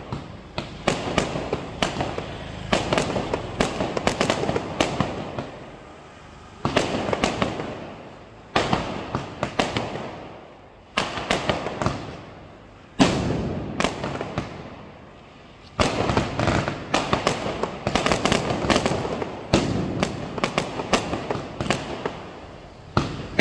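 Standard Fireworks 'Kaleidoscope' multi-shot fireworks cake firing aerial shots in quick succession: sharp bangs, each followed by a few seconds of crackling that dies away, with the shots coming thick and fast in the second half.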